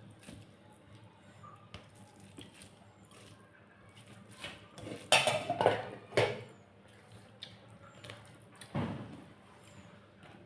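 Eating sounds from a meal of rice and curry: small clicks and soft wet noises of food being handled on a plate and chewed. There is a louder cluster of sounds about halfway through and another near the end.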